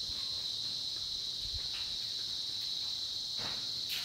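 Steady, high-pitched shrill of an insect chorus, with a couple of faint knocks near the end.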